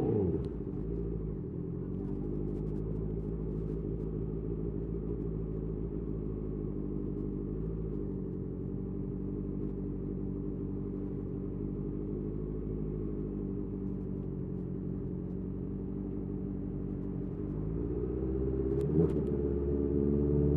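Honda CBR650R inline-four through a Mivv MK3 carbon aftermarket exhaust, dropping quickly from a brief rev to a steady idle. Near the end the revs climb, with a single sharp click at about the same time.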